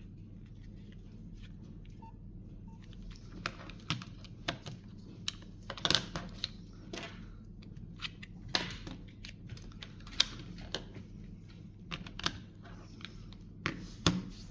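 Irregular clicks and taps of a Nokia 8810 mobile phone being handled and its keypad buttons pressed, starting about three seconds in, over a steady low hum.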